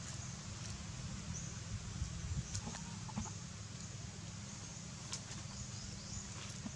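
Steady outdoor background hiss and low hum, with a few faint, short, high chirps from birds and scattered light clicks.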